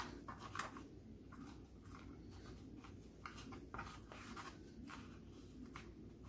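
Faint small clicks and scrapes of gloved hands handling a small plastic connector housing and a flat ribbon cable, over a low steady room hum.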